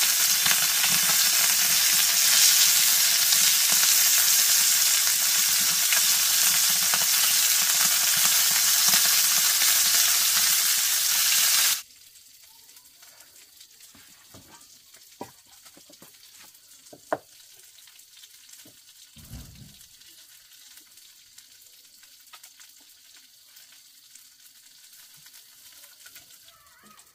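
Small whole fish frying in hot oil in a pan over a wood fire: a loud, steady sizzle. It cuts off suddenly about twelve seconds in, leaving a quiet background with a few light clicks and one low thump.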